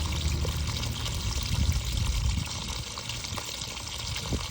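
Water pouring steadily as a top-load washing machine is emptied, easing off slightly about two and a half seconds in.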